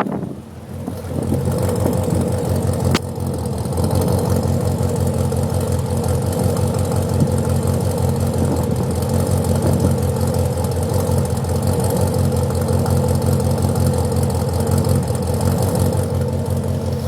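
Car engine idling with a misfire, a steady pulsing run with a brief dip in level about half a second in. A single sharp click about three seconds in.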